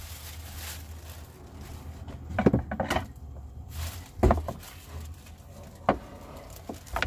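Plastic bag crinkling, then a wooden cutting board being handled and set down on a wooden counter, giving several sharp knocks, the loudest about two and a half and four seconds in.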